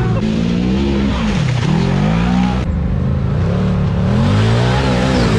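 Side-by-side UTV engines revving hard, the pitch rising and falling again and again, with an abrupt change about halfway through.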